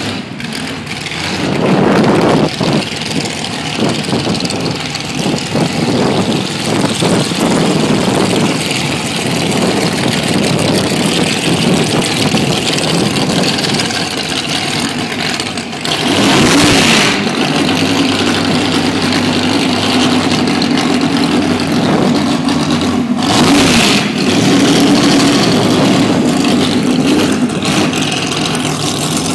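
Top Fuel dragster's supercharged V8 running a pit warm-up, loud and rough. Two short, sharp blips of the throttle come a little past halfway and again later, and after the first the engine settles into a steadier idle.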